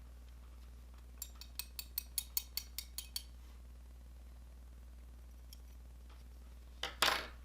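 A quick run of about a dozen small, sharp clicks, roughly five a second, over about two seconds, then a short, louder noisy burst near the end, over a steady low hum.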